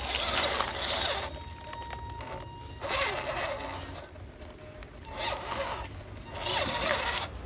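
Electric RC crawler driving over loose gravel and rocks: its motor and gears whir and its tyres crunch on stones in four short spurts, with quieter pauses between.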